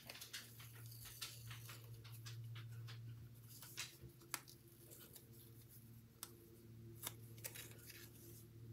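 Faint rustling and small clicks of satin ribbon and cardstock being handled as a ribbon bow is tied on a card, with a few sharper ticks about four and seven seconds in. Under it runs a steady low hum.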